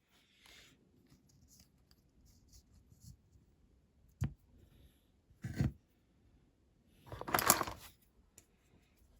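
Small handling noises of working on a diecast toy van at a bench: a sharp click about four seconds in, a short knock just over a second later, and a louder rasping noise lasting about a second near the end.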